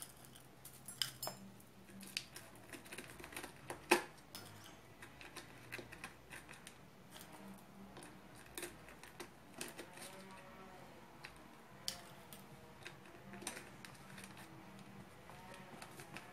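Dried hibiscus flowers and a plastic shampoo bottle being handled as the flowers are pushed into the bottle's narrow neck: faint, irregular crackles and clicks, with a sharper knock about four seconds in.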